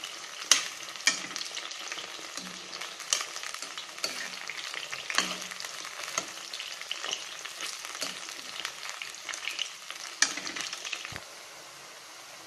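Soya chunks deep-frying in hot sunflower oil in a kadai, a steady sizzle broken by sharp clinks and scrapes as a metal spoon turns them against the pan. The sizzle drops a little quieter about eleven seconds in.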